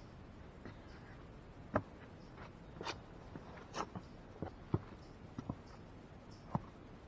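Footsteps of a hiker clambering over rocks: irregular steps and scuffs on stone, with sharp knocks a little under 2 s in and near 5 s in.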